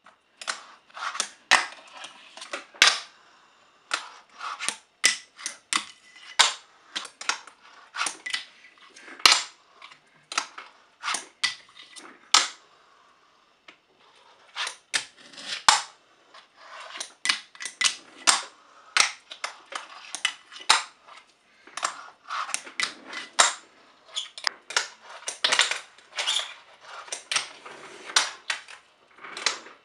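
A fingerboard (a finger-sized skateboard) ridden over tabletop ramps and ledges: sharp clacks from the deck popping and landing, with its little wheels rolling and grinding in between. The clacks come in quick runs, with a short lull about halfway through.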